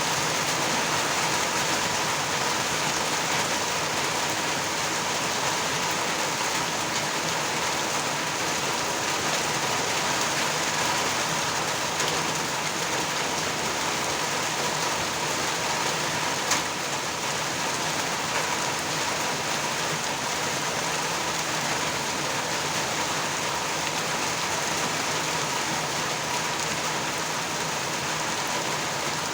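Steady rain falling, an even, unbroken hiss, with one sharp tap a little past halfway.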